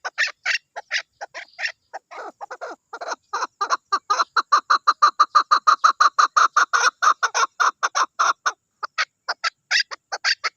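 Chukar partridge calling: a rapid string of short clucking notes, about six a second. About two seconds in they settle into a lower, steady run, and higher notes return near the end.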